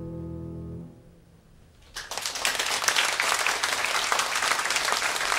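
The band's final held chord rings and stops about a second in; after a short hush the audience breaks into applause about two seconds in, which carries on steadily.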